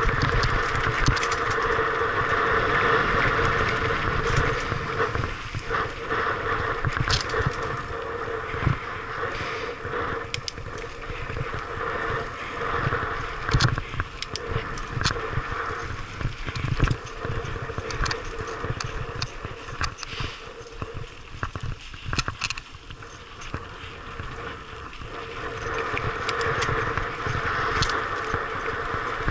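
Mountain bike rolling fast down a loose gravel and dirt track: tyres crunching over stones with frequent sharp knocks and rattles from the bike, louder at first, easing through the middle and rising again near the end.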